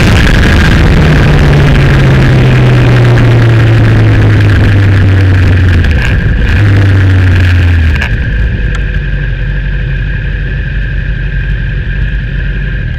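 Kawasaki Ninja motorcycle engine slowing with heavy wind rush on the microphone: its note falls steadily, breaks briefly about six seconds in, then drops to a low idling rumble about eight seconds in as the bike comes to a stop and the wind noise dies away.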